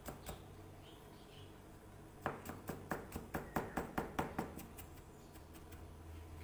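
Cleaver chopping ginger on a plastic cutting board: a few single knocks at the start, then a rapid run of knife strikes from about two seconds in that stops about halfway through.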